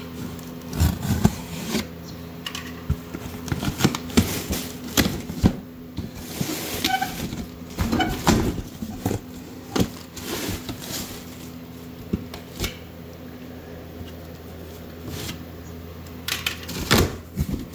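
Utility knife slitting packing tape on a cardboard box, then the cardboard flaps being pulled open: a string of scrapes, rips and crackles, with plastic air-pillow packing rustling near the end. A steady low hum runs underneath.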